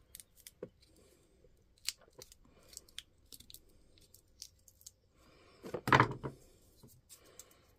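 Small clicks and scratches of metal tweezers pressing an adhesive ring insulator onto the end of an 18650 lithium-ion cell. A brief louder sound comes about six seconds in.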